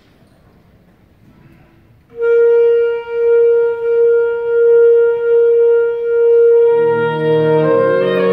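Saxophone ensemble beginning a piece: after about two seconds of quiet, one saxophone holds a long single note that swells and eases several times. About four and a half seconds later, lower saxophones come in beneath it, building a sustained chord.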